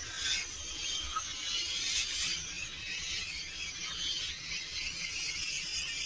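Forest ambience carried by a steady, high insect chorus, with a couple of brief louder calls near the start and about two seconds in.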